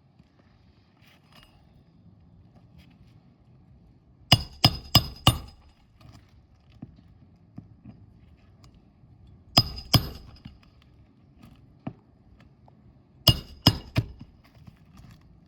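Hammer blows with a metallic ring on a shingle roof, in three quick groups: about four strikes, then two, then three.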